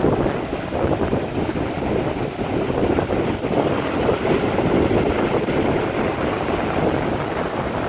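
Ocean waves and surf rushing, with wind buffeting the microphone; a continuous rough rush that swells and eases a little.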